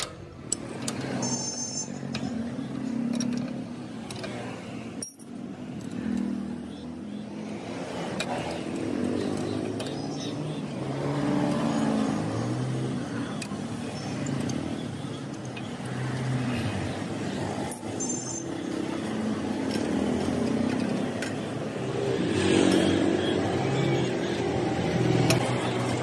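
Royal Enfield Bullet Electra's single-cylinder engine running with the rear wheel turning, and the slack drive chain rubbing against the rear brake rod as it runs: the noise that shows the chain is too loose. The sound drops out briefly about five seconds in.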